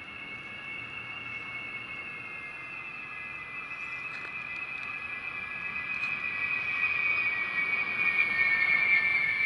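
B-52H Stratofortress's eight TF33 turbofan engines whining on landing approach. The high whine grows louder and drops slightly in pitch as the bomber comes closer.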